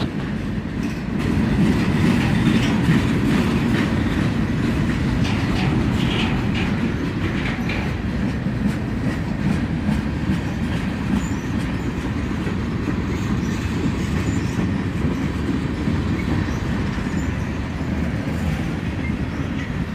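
Freight cars of a slow-moving freight train rolling past, a steady rumble of wheels on rail with clicking and clacking over the rail joints.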